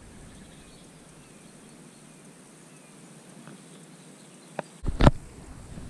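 Faint steady outdoor background hiss, then two sharp knocks about half a second apart near the end, the second louder: the action camera being picked up and handled.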